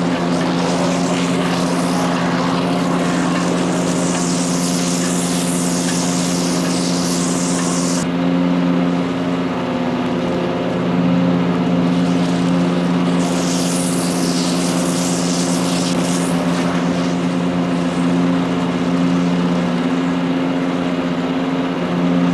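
Power King wood chipper shredder running steadily at working speed on its Kohler CH440 single-cylinder engine. A high rushing hiss sits over the engine for the first third and again for a few seconds past the middle.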